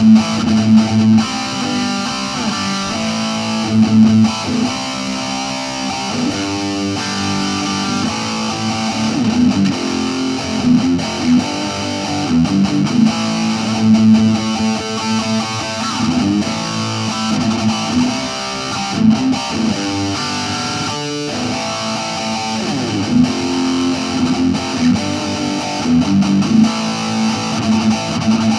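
Electric guitar played through a Roland Cube 20X practice amp on its distorted Metal Stack setting, in a continuous run of riffs and chords.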